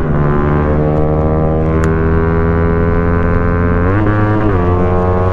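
Motorcycle engine droning steadily at high highway speed, heard from on board the bike, its pitch sagging slowly. About four seconds in, the pitch briefly rises and falls back before settling.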